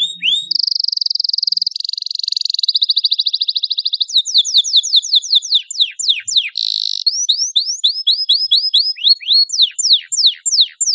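Domestic canary singing a long, unbroken song of rapid trills and quick downward-sweeping whistled notes, switching to a new phrase every second or two.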